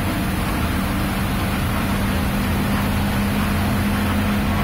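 Coach bus driving along a road, heard from inside the driver's cab: steady engine drone with tyre and road noise. A steady low hum sets in about a second in.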